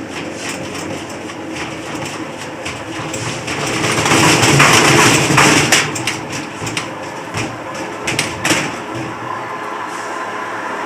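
Whirlpool 15 kg washing machine in its spin cycle, running with a rumbling clatter and irregular knocks, louder for about two seconds near the middle. The owner puts the noise down to worn drum bearings.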